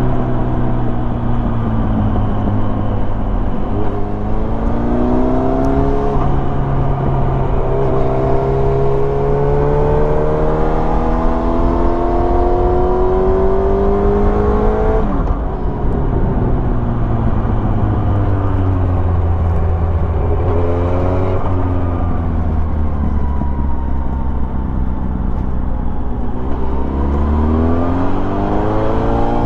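Motorcycle engine under acceleration, its pitch climbing in several rises, each ending in a sudden drop at a gear change. The longest climb runs through the middle. It then runs lower and steadier before climbing again near the end.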